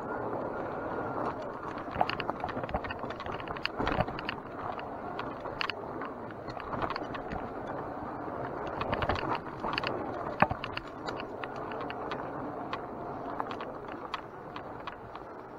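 Mountain bike ridden over a rough dirt trail: steady rolling and rushing noise, with frequent clicks, knocks and rattles from the bike over bumps.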